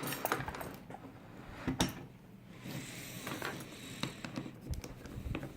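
Small clicks and ticks with a brief scraping rustle a little before the middle: hands handling a lock cylinder and lock-picking tools.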